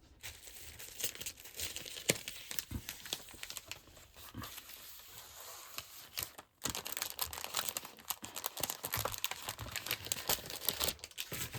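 Crinkling and rustling of a pack of patterned craft paper and its wrapping being handled, as irregular crackles that stop briefly about six and a half seconds in.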